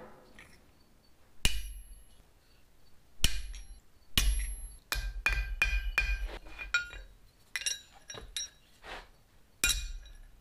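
Hammer blows on an anvil, bending small flat steel tabs, each strike ringing sharply. Two hard strikes about two seconds apart come first, then a quicker run of lighter blows in the middle and one more hard strike near the end.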